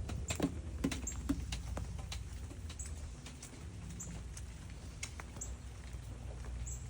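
Outdoor garden ambience: a short high chirp repeats about every second and a half, like a small bird, over a steady low rumble. There are scattered light clicks and rustles, thickest in the first two seconds.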